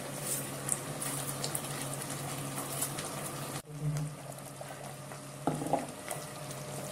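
Chicken curry simmering in an aluminium cooking pot with a steady bubbling hiss. The sound drops out briefly a little after three and a half seconds, then ground tomato purée goes in from a steel bowl with a short dull splat.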